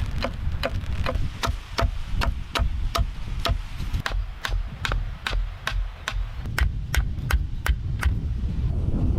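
Knife chopping on a cutting board in a quick, even rhythm of about three strokes a second, stopping about a second before the end. Wind rumbles on the microphone underneath.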